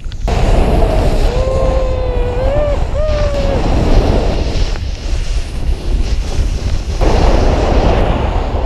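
Wind buffeting the microphone of a pole-mounted action camera as a snowboarder rides down a snow slope. About two seconds in, a drawn-out call from a person's voice rises and falls for about a second and a half, and the rush of wind gets louder about seven seconds in.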